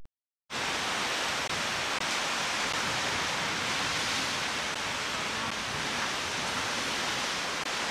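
Steady, even rush of breaking ocean surf on the camcorder microphone, starting abruptly about half a second in.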